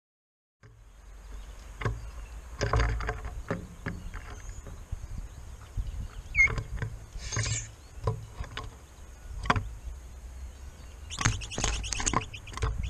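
Low wind rumble on the microphone of an outdoor camera, starting after a moment of silence, with scattered clicks and knocks throughout and one short high chirp about six and a half seconds in.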